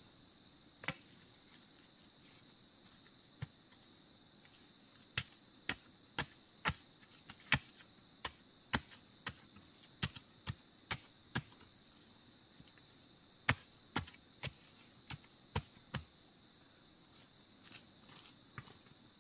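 Repeated chopping strikes, about two a second in two runs with a short pause between them, typical of hacking at bamboo or wood with a blade. A steady high drone of crickets or other insects runs underneath.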